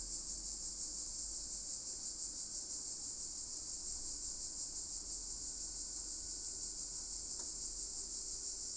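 Steady high-pitched insect chirring, even and unbroken, with one faint tick about seven seconds in.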